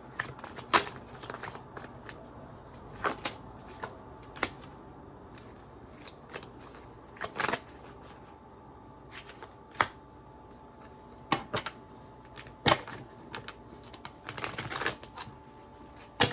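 Tarot cards being handled, shuffled and laid down: irregular crisp snaps and taps of card stock, with a quicker run of them near the end.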